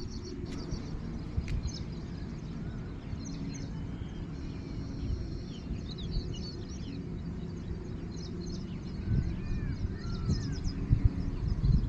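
Birds chirping and calling over a steady low rumble, the rumble growing a little louder near the end.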